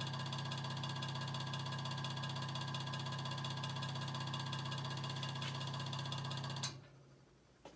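Early-1950s Vornado Jr. table fan's two-pole shaded-pole motor running on low speed with a steady, noisy hum; the owner believes its windings are burned and shorted. Near the end a click comes and the hum cuts off suddenly, as the fan is switched off.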